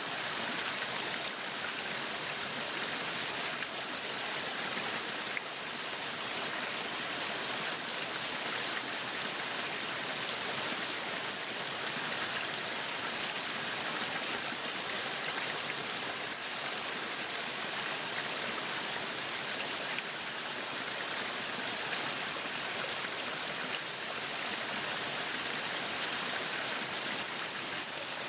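Meat sizzling on a yakiniku grill: a steady, unbroken hiss with fine crackle.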